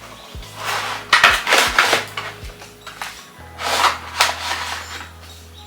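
Background music: sustained low bass notes that shift about halfway through, under short, brushy percussion hits.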